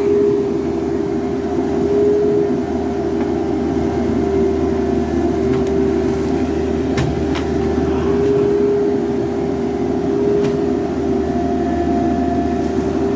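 Excavator's diesel engine and hydraulics running steadily, with a constant whine and a low hum, and a couple of faint clicks about halfway through.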